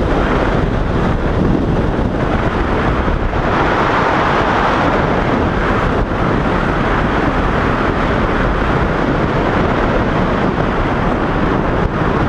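Steady rush of wind over the microphone from a moving car, with road and engine noise underneath; it swells a little about a third of the way in.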